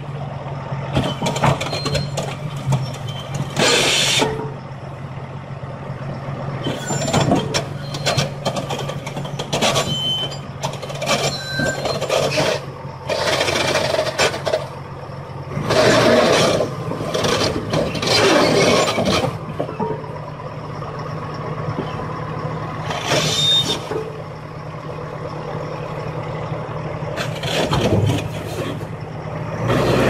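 Heavy diesel engines of a truck rig hauling a Komatsu D475A bulldozer on a lowboy trailer, running with a steady low hum. Repeated loud bursts of noise come over it every few seconds, the loudest about two-thirds of the way through.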